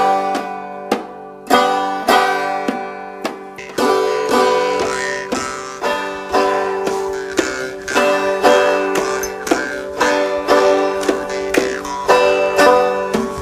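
Acoustic guitar and five-string banjo playing a simple duet, with a steady run of plucked notes and strums; the banjo part follows a strum-strum, tap-tap pattern on the banjo head.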